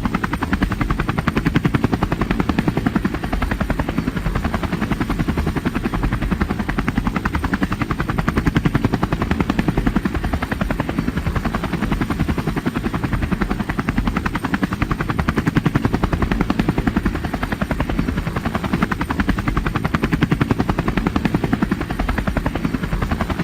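Helicopter rotor blades beating rapidly and steadily over the running engine, like a helicopter hovering close by.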